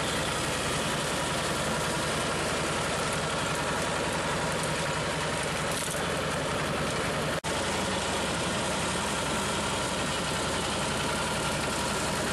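Road roller's engine running steadily at low speed, a continuous drone, with a brief sudden cut-out about seven seconds in.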